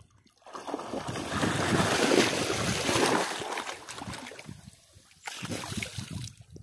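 Muddy creek water sloshing and splashing as a Doberman wades through it close by: a long rushing surge from about half a second in that eases off after about four seconds, then a shorter surge near the end.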